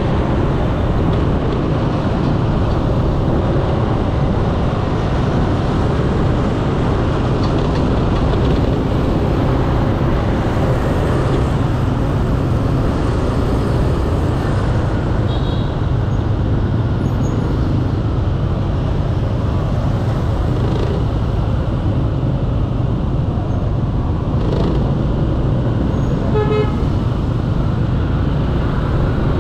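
Steady road and wind noise from riding a motor scooter in dense motorbike and car traffic. A vehicle horn honks briefly near the end.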